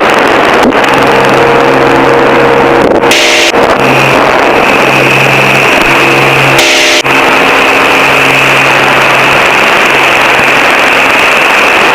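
Light aircraft engine noise carried over an aviation radio/intercom, a loud steady drone with hiss, likely from an open 'hot' mic; two short clicks come about three and seven seconds in.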